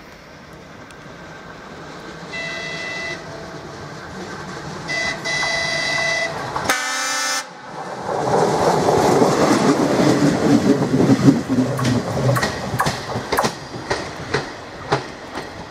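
ČD class 814 diesel railcar sounding its horn as a greeting to the trackside watcher: three blasts, the last the loudest. It then passes close by, running noise rising and wheels clicking over the rail joints.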